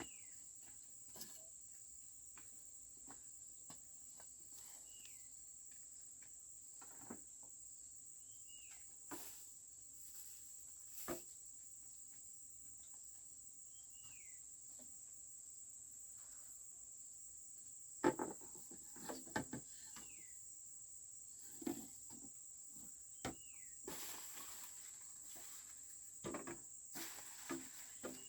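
Steady high-pitched drone of insects, with a bird's short falling whistle repeated every few seconds. Scattered knocks and rustles come in from about two-thirds of the way through.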